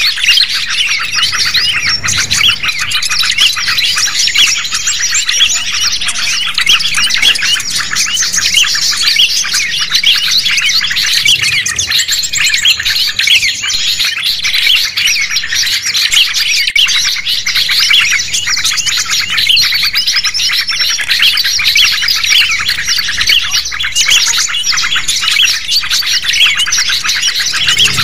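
Dense, unbroken chatter of many small songbirds chirping and trilling over one another: a mixed 'noisy birds' lure recording (suara pikat) of the kind played to draw wild birds in.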